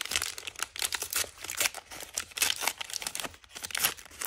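Crinkly toy blind-bag wrapper being crumpled and torn open by hand, a dense run of irregular crackles with a brief lull about three and a half seconds in.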